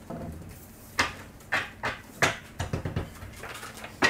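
Playing cards being shuffled and dealt onto a wooden tabletop: a string of sharp, irregular taps and knocks, the loudest about a second in and just before the end.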